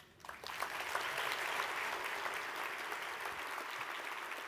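Audience applauding. It starts about half a second in, builds within the first second, then holds steady.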